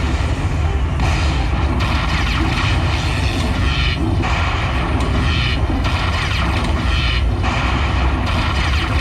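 Lightning Buffalo Link slot machine game sounds: a steady deep rumble under bright electronic passages that break off and restart every second or two.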